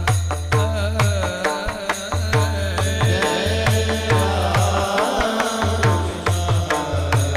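Marathi kirtan devotional music: a voice sings a wavering melodic line over a steady rhythm of deep drum strokes and regular crisp strikes.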